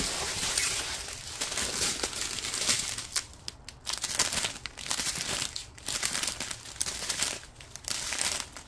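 Small clear plastic zip bags of diamond-painting drills crinkling and rustling as they are picked up, sorted and turned over in the hands, in a run of short scratchy rustles with a few brief lulls.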